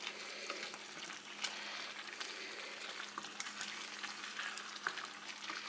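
Creamy sauce with chicken thighs simmering uncovered in a pan: a steady sizzle with small scattered pops as it cooks down.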